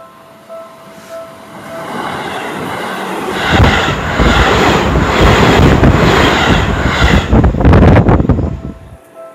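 Seibu Railway electric commuter train passing close by: a rumble builds from about two seconds in, then comes a few seconds of loud, rhythmic wheel clatter over the rail joints, and it drops away near the end. A level-crossing warning bell rings in an even, repeating beat at the start and again at the end.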